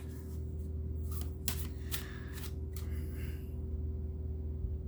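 Tarot cards being handled: a few short, crisp snaps and a soft rustle of card stock. A steady low electrical hum sits underneath.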